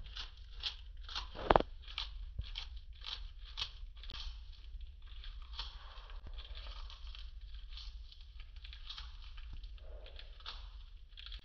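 Bearded dragon crunching a large winged cockroach in its jaws: a run of crisp crunches about three a second, the loudest about a second and a half in, easing to softer chewing later.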